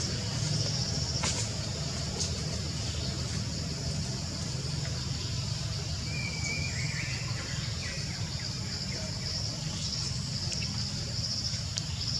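Forest ambience: a steady high insect drone over a low rumble, with a few short bird chirps in the middle and a couple of faint clicks near the start.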